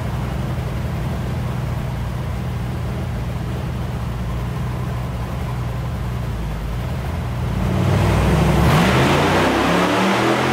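Buggy's 6.2-litre L92 V8 with an LSR camshaft idling steadily on a chassis dyno. About eight seconds in it revs up, getting louder and rising in pitch, then falls back near the end.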